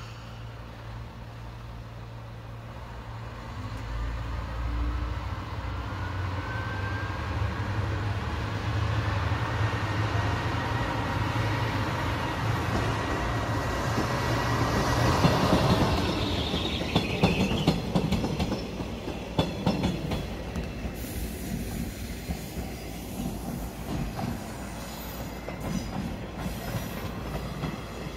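Sanriku Railway diesel railcar pulling out and passing close by: its diesel engine's low drone builds, with a thin wheel squeal held for several seconds, and it is loudest about halfway through. The wheels then click over rail joints and points for a few seconds as it goes past.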